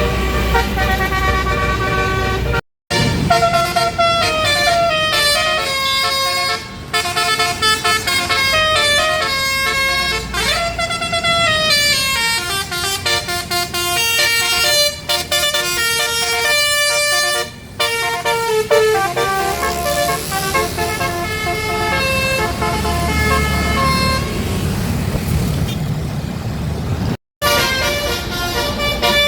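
Indonesian tour buses' basuri telolet horns, multi-trumpet air horns playing quick tunes of many short notes one after another, over bus engines running. One note glides upward about ten seconds in. The sound drops out abruptly for a moment twice, once near the start and once near the end.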